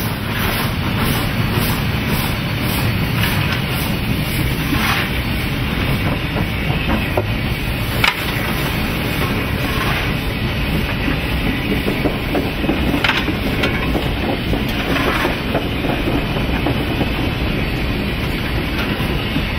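Cab noise of C32-class steam locomotive 3265 running under way: a steady rumble and clatter of the engine and wheels with steam hiss. A few sharp clanks of the fireman's shovel at the firehole come through as coal is fed into the firebox, the clearest about eight and thirteen seconds in.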